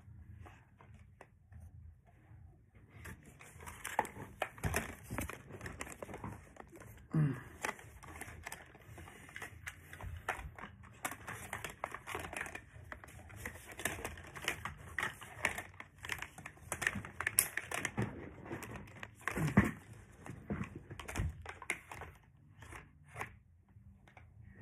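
Plastic toy race-track pieces being handled and fitted together: a run of small clicks, knocks and clattering with plastic rustling throughout, busiest from about three seconds in.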